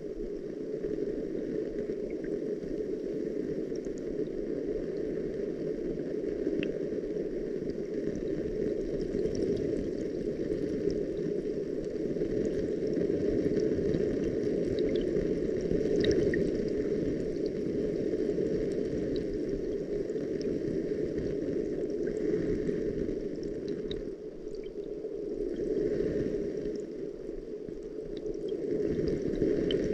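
Steady, muffled rush of water, with scattered small ticks of drops over it; it eases and swells a few times near the end.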